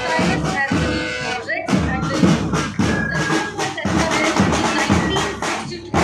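Marching band music from a school parade band, drums keeping a steady march beat with a few held tones, over crowd voices.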